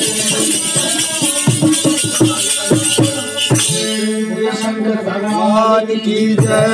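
Instrumental music accompanying a devotional bhajan. For the first few seconds jingling percussion and drum strokes play. At about four seconds the jingling stops and a steady held note carries on with a wavering melody over it.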